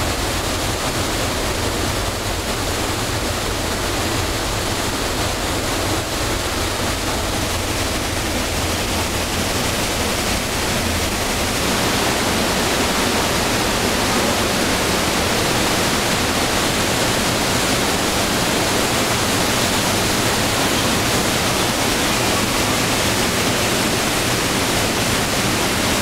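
Trümmelbach Falls, a glacier-fed waterfall pouring down inside the mountain, making a loud, steady rush of water in the enclosed rock gorge. It grows a little louder about halfway through.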